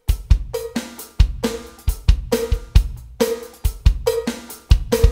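Roland TD-30 electronic drum kit played as a steady groove: kick drum, snare and hi-hat, with a short pitched bell-like ring on many of the strokes from the extra sound assigned to the second hi-hat.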